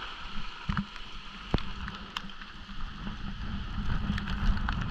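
Steady rain falling, with gusty wind rumbling on the microphone and a few scattered sharp ticks.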